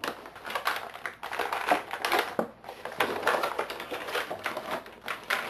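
Rigid plastic action-figure packaging being worked open by hand: a dense, irregular run of crackles and sharp clicks.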